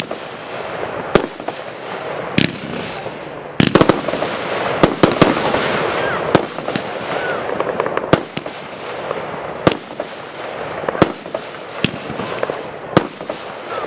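Royal Fireworks 'Solid Stone' consumer fireworks cake firing: about a dozen sharp bangs of its shells, one every second or two, with a quick cluster of three or four near the middle. A dense hissing, crackling wash fills the gaps between the bangs.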